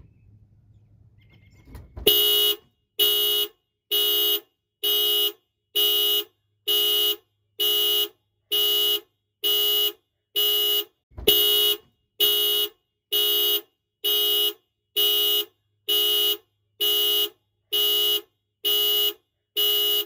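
Nissan Juke's car alarm going off: the horn honks in a steady pulse about once a second, each honk about half a second long. It starts about two seconds in.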